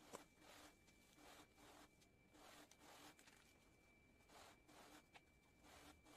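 Faint rhythmic scraping, about two short strokes a second, over a faint steady high tone.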